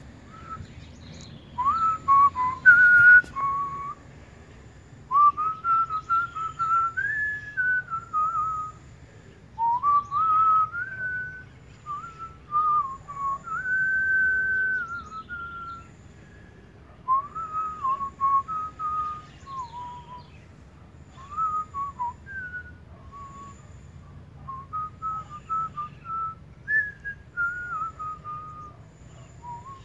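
A person whistling a tune in phrases of a few seconds each, with held notes and short pauses between them.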